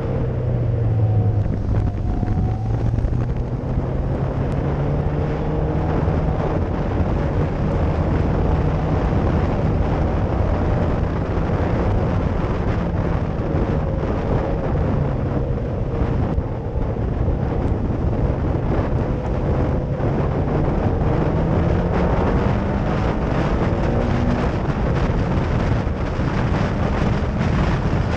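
Caterham Seven Supersport's Ford Sigma four-cylinder engine running hard in a race, its revs rising and falling with the throttle and gear changes, with wind buffeting the microphone in the open cockpit.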